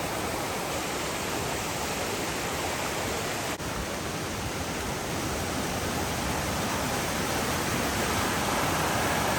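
Rio Negro river rushing over its bed, a steady hiss of running water that grows a little louder toward the end.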